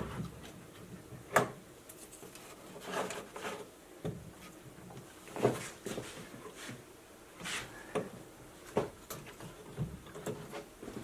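A vintage Blaupunkt tube radio's chassis being worked back into its cabinet: a string of scattered knocks and scraping as it is shifted into place.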